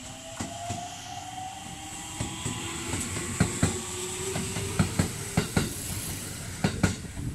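Aichi Loop Railway 2000 series electric train pulling away from the station. Its motor whine rises slowly in pitch as it accelerates, while the wheels click over the rail joints, the clicks coming sharper and more often from about halfway through.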